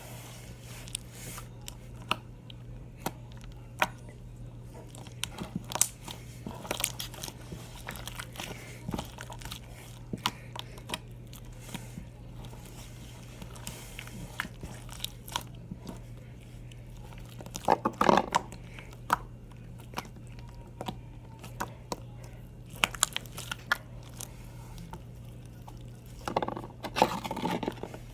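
Slime being squeezed and handled, giving scattered sticky crackles and little pops, with a denser burst of crackling about 18 seconds in and again near the end. A steady low hum runs underneath.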